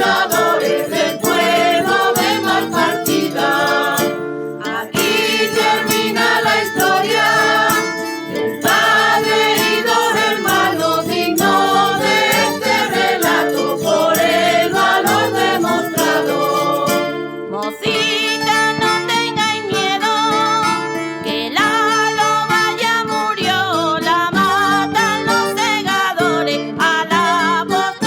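Traditional Extremaduran folk song sung in chorus by a folk group's mixed voices, with guitars strumming the accompaniment.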